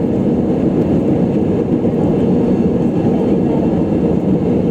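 Airbus A320 airliner cabin noise: a steady, loud, low rumble of engines and airflow with no changes.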